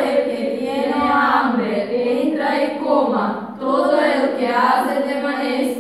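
A group of girls singing together without accompaniment, in long held phrases, with a short break for breath about three and a half seconds in.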